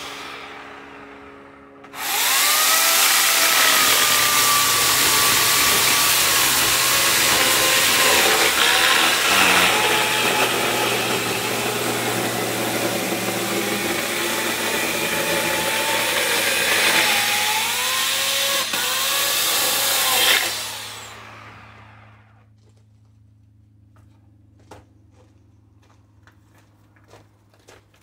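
Sun Joe electric chainsaw running for about eighteen seconds while cutting through a log, a steady motor whine over the chain noise that dips in pitch a few times under load. It winds down over a couple of seconds after the trigger is released, leaving only a few small clicks.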